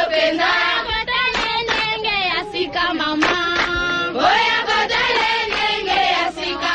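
Voices singing a chant in an African tribal style, with sung syllables that rise and fall continuously.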